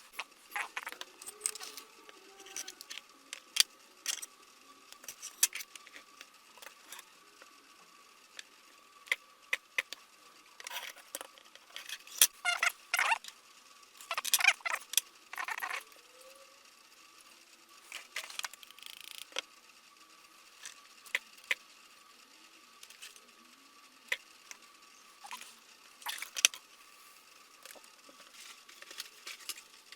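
Irregular small clicks and clattering rattles of battery cells and plastic pack parts handled by hand while a vacuum cleaner battery pack is put together, busiest in the middle, with a faint steady high whine underneath.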